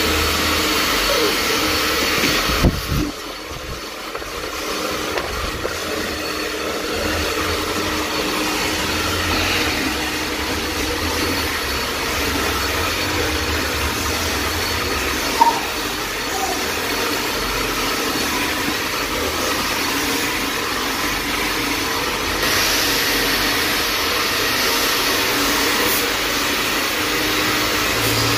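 Hand-held hair dryer running steadily while hair is blow-dried, with a brief knock about three seconds in.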